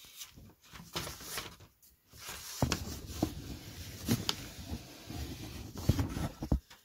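Tissue paper rustling and crinkling as fingers press and work it onto a balsa model-aircraft wing, with several sharp taps and clicks of handling. The sound is irregular and grows busier about two and a half seconds in.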